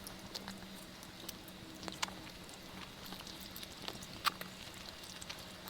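Close-miked eating sounds: quiet chewing of mansaf with scattered wet mouth clicks, the sharpest about four seconds in.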